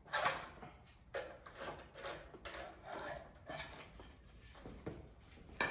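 Handling noises at a pillar drill that is switched off: about eight separate short knocks, clunks and scrapes as the chuck's tooling and a wooden workpiece are handled on the drill table.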